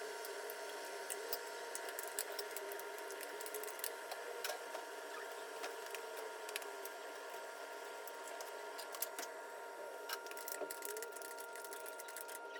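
A steady machine hum with two constant high tones, and light clicks scattered throughout.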